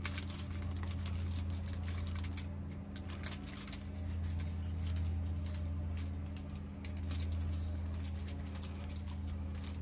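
Kitchen knife scoring slits into a whole red snapper lying on aluminum foil: a scatter of small crackles and clicks as the blade cuts through the scaled skin and crinkles the foil, over a steady low hum.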